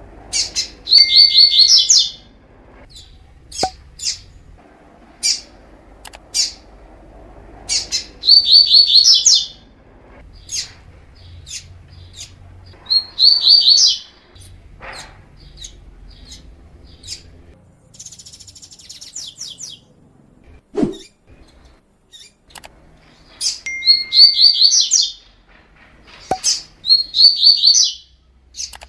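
Double-collared seedeater (coleiro) singing: loud, high-pitched song phrases about a second long, repeated several times, between scattered short chirps.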